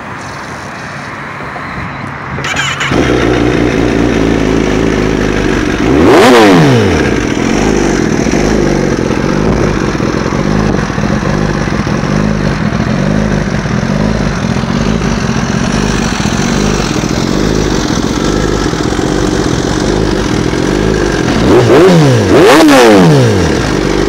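2016 Kawasaki ZX-10R's inline-four engine starting about two and a half seconds in, then idling steadily. It is revved once about six seconds in and twice in quick succession near the end, rising and falling in pitch each time.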